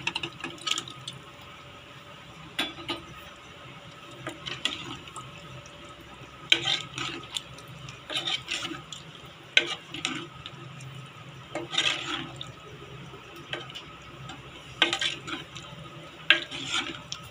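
Boiled kidney beans slopping into gravy in a steel pressure cooker, then a steel ladle stirring the pot and scraping and clinking against its sides in short strokes every second or two.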